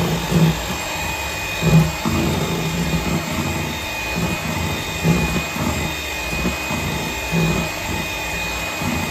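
Electric hand mixer running steadily, its beaters whipping eggs and sugar into cake batter in a stainless steel bowl. A steady high motor whine, with uneven low bumps as the beaters are moved around the bowl.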